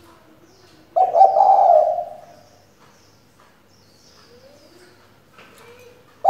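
Female spotted dove cooing: one loud call about a second in, lasting about a second, with faint low coos before and after it. It is a decoy hen's call, used to urge a male spotted dove into song.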